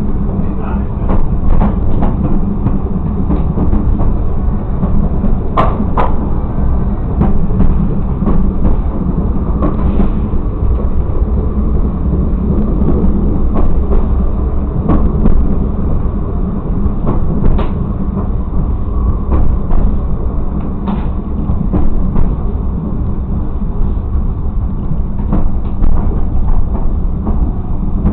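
Railcar running slowly along the track, heard from inside the driver's cab: a steady low engine and running noise with scattered clicks and knocks as the wheels pass rail joints and a switch.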